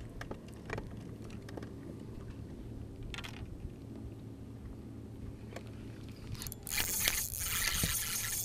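Small clicks and handling noises of fishing gear over a steady low hum, then a loud hissing rush starting about six and a half seconds in and lasting about two seconds.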